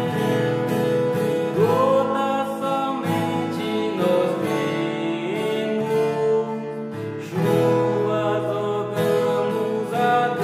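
A man singing a hymn, accompanying himself on a strummed steel-string acoustic guitar.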